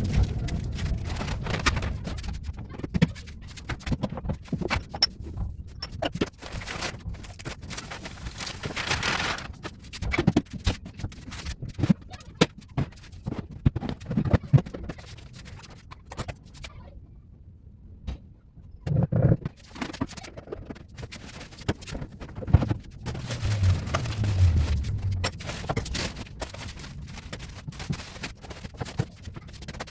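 Handling groceries while putting them away: irregular knocks, clicks, rustling and scraping as packets, tins and containers are picked up and set down.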